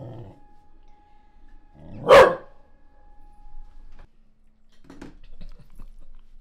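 A Welsh corgi barks once, a single sharp bark about two seconds in, with a few much fainter sounds later.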